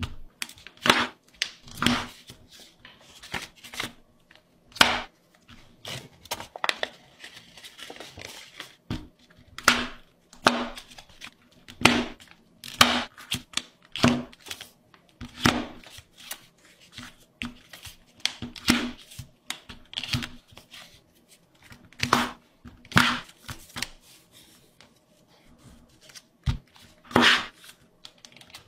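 Paper being handled: irregular sharp crackles and snaps, the loudest about once a second, with softer rustles between.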